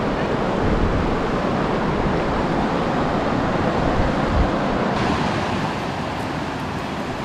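Fast mountain river rushing over rocks in whitewater rapids, a steady roar, with wind buffeting the microphone in the first part. The sound shifts slightly about five seconds in.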